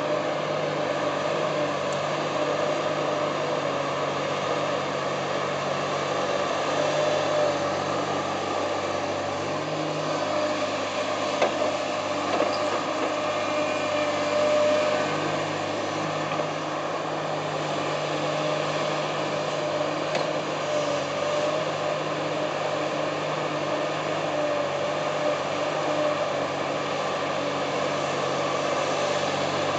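Komatsu PC350 excavator's diesel engine running steadily under working load as it digs clay and swings to load a tipper truck, its engine note shifting a couple of times as the hydraulics take up load, with a few light knocks.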